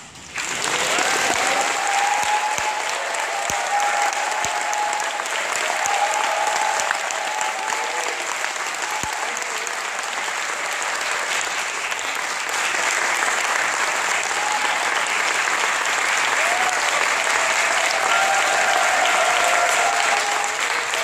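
Concert audience applauding, breaking out suddenly just after the start and going on at full strength, with scattered voices cheering over the clapping.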